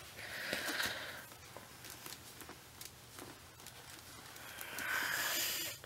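A damp cloth wiping a reborn doll's diaper area, soft rubbing and rustling in two spells: one in the first second and a longer one from about four seconds in, with faint handling ticks between.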